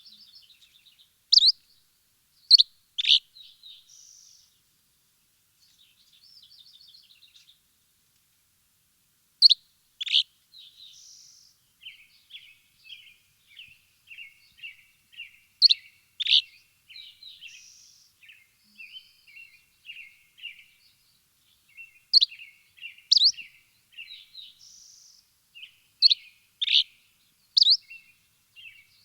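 Birds chirping: loud, sharp chirps in clusters of two or three every few seconds, with softer, rapid twittering between them.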